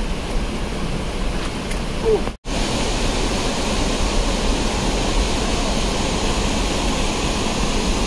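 Steady rush of water from a mountain stream, cut off for an instant about two and a half seconds in, then continuing slightly louder.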